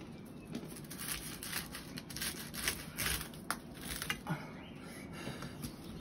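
A knife cutting and breaking the crisp baked crust of a shah pilaf, an irregular run of crackling crunches from about half a second in until about four and a half seconds in.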